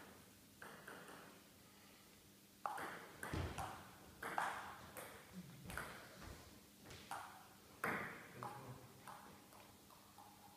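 Table tennis ball striking bats, the table and the floor: a run of short sharp clicks at uneven spacing, one or two a second, busiest in the middle.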